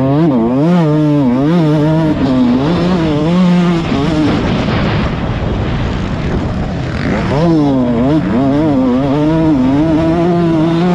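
Motocross bike engine heard from on board the bike, revving up and down repeatedly as the throttle is opened and shut. In the middle the engine note drops back under a rushing noise for a few seconds, then climbs again.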